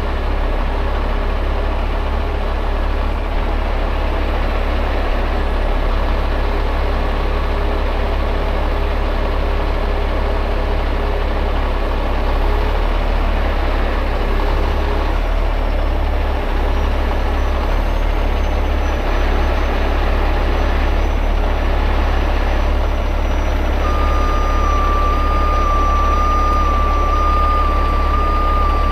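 Heavy rotator tow truck's diesel engine running steadily, powering the crane's hydraulics as the boom lifts a small utility truck. Near the end a high-pitched backup-style warning beeper starts up over it.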